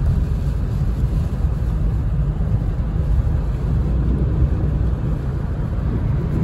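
Steady road noise inside a moving car on a rain-soaked road: tyres on wet pavement and the engine, mostly low in pitch, with rain coming down.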